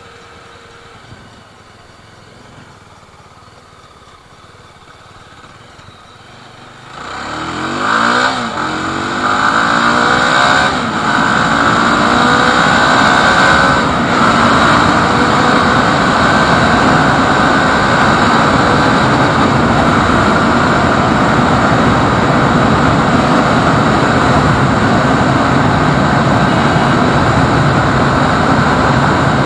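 Yezdi Scrambler's single-cylinder engine running quietly, then, about seven seconds in, accelerating hard with quick upshifts, rising in pitch between shifts. After that comes a steady, loud rush of engine and wind noise at full throttle as the motorcycle nears its top speed.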